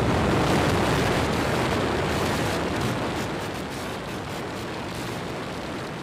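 SpaceX Super Heavy booster's 33 Raptor rocket engines firing at Starship's liftoff: a loud, continuous rumble of rocket exhaust, loudest in the first couple of seconds, with a crackle coming in about two seconds in.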